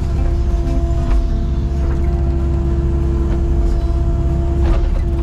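Excavator running: a steady engine drone with a constant higher hum held over it, and a couple of brief knocks, about a second in and near the end.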